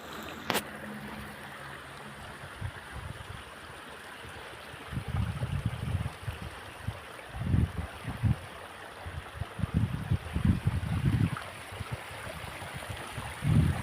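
Steady rush of flowing stream water, with a sharp click about half a second in and irregular low rumbles of wind buffeting the microphone from about five seconds in.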